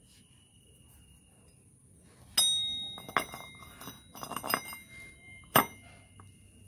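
Steel motorcycle rear sprocket clanking and ringing as it is set onto its sprocket carrier, with smaller metal knocks in between. The two loudest clanks come a little over two seconds in and about three seconds later, each ringing briefly.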